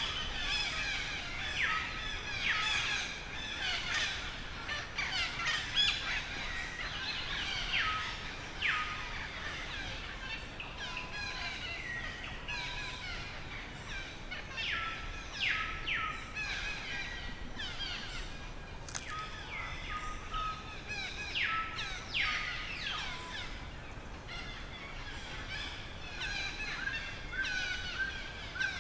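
Many birds chirping and calling at once: a busy run of short, quick, overlapping notes with a few brief whistled tones.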